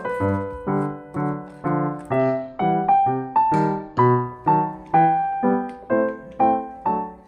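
Background music: a light piano tune of evenly paced notes, about two a second.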